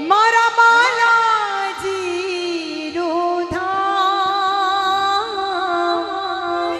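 A woman sings a devotional Hanuman bhajan into a microphone, holding long wavering notes over a music accompaniment, with a few sharp taps.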